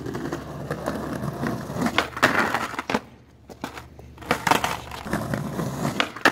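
Skateboard rolling up and grinding a waxed concrete ledge in a 50-50, its trucks scraping along the edge, with sharp clacks of the board landing and hitting the ground.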